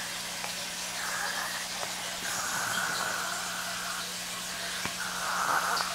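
A young child imitating snoring with three breathy, noisy breaths, the middle one the longest.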